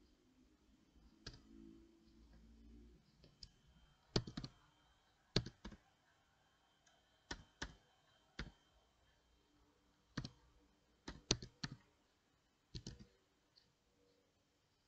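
Computer keyboard keys pressed one at a time in slow, irregular typing: about a dozen sharp clicks, some coming in quick pairs and triples.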